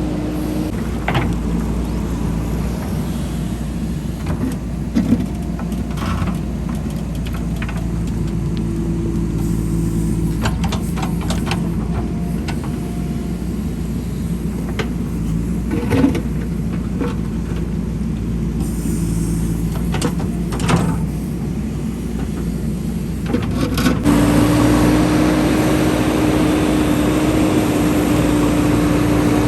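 Diesel engine of a JCB 3DX backhoe loader running steadily, with scattered knocks and clanks from the machine. About 24 s in the engine gets louder and its note holds higher and steadier, as if it is put under load or revved.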